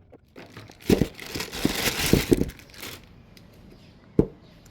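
Packaging crinkling and rustling as it is handled, with several knocks among the rustle, then one sharp knock about four seconds in.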